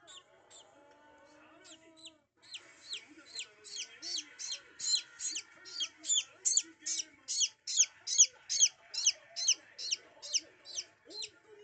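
Japanese bantam chick peeping: a steady run of loud, high, falling peeps, about two and a half a second, starting a couple of seconds in after a few fainter ones.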